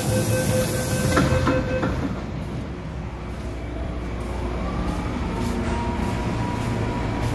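MTR Island Line M-Train running out of a station, heard from inside the car: a steady low rumble of wheels and running gear. A high hiss and some steady tones stop about two seconds in, and then the traction motors' whine rises in pitch and holds as the train picks up speed.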